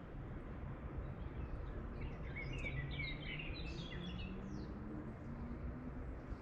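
A songbird twittering, a quick run of high chirps lasting about two seconds that starts about two seconds in, over a steady low outdoor background rumble.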